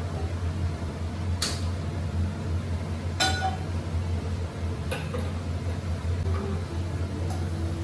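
Cooking utensils clinking against a frying pan and containers, four separate knocks, one of them ringing briefly like metal or glass. Under them runs a steady low hum.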